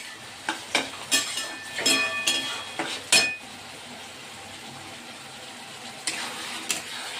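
Metal ladle stirring chilli chicken gravy in a metal kadai, clinking and scraping against the pan several times in the first three seconds and again near the end. The gravy simmers with a soft sizzle in between.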